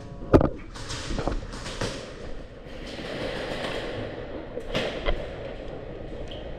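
Airsoft guns firing in sharp single cracks: a loud one near the start, a few fainter ones over the next second and a half, and two more close together about five seconds in, with rustling movement between.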